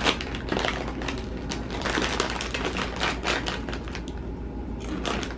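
Plastic snack bag of cheese puffs crinkling and rustling as a hand rummages inside and pulls pieces out, a quick irregular crackle.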